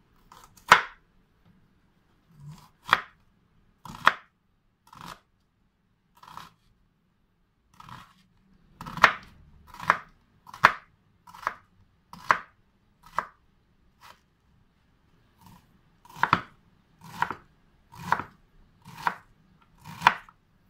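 Kitchen knife chopping an onion on a wooden cutting board: single strokes of the blade knocking on the board, about one a second, in short runs with brief pauses between them.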